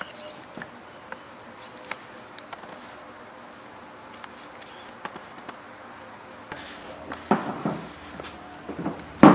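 Steady faint buzzing hum of a workshop, with scattered light clicks and a few louder bumps and rustles near the end.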